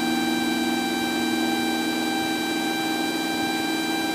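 Cessna 172SP's four-cylinder Lycoming engine and propeller droning steadily in cruise-climb power, heard inside the cockpit as an even hum with several steady tones over a rushing noise.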